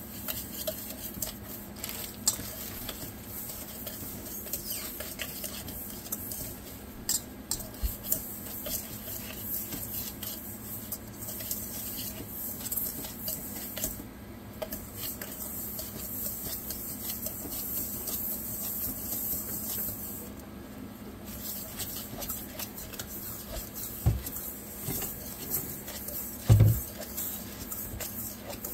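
A spoon stirring a gritty dry rub of brown sugar and spices around a stainless steel mixing bowl: steady scraping with many small clinks against the metal, and a couple of louder knocks near the end.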